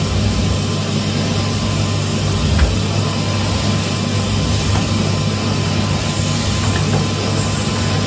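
Pink Numatic Hetty cylinder vacuum cleaner running steadily as its floor tool is worked over carpet, a constant motor hum with airy suction noise. One small knock about two and a half seconds in.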